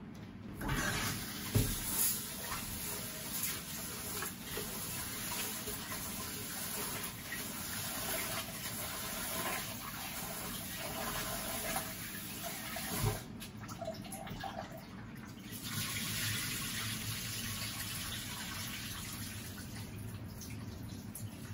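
Kitchen tap running into a stainless-steel sink as rice is rinsed in a rice cooker's inner pot, with a few knocks of the pot against the sink. The flow eases off about thirteen seconds in and picks up again a couple of seconds later.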